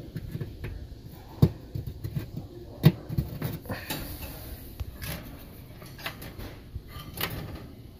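Handling noise as the old probe manifold's wires and plugs are pulled through a small hole in the oven's metal cavity: scattered light clicks and knocks, with two sharper knocks about a second and a half apart.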